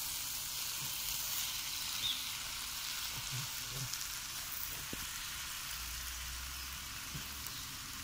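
Stir-fried noodles sizzling in a hot frying pan while being tossed with a spatula, a steady hiss with a few light clicks of the utensil.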